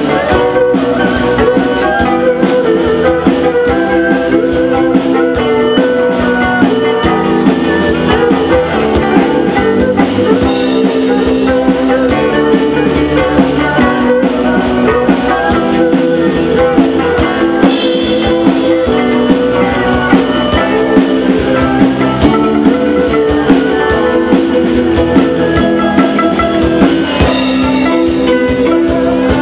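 A live ensemble of traditional Chinese plucked lutes, pipa and ruan, playing a melody together with keyboard and a drum kit.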